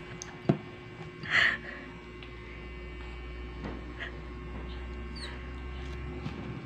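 Steady low electrical hum, with a sharp tap about half a second in and a short high squeak at about a second and a half.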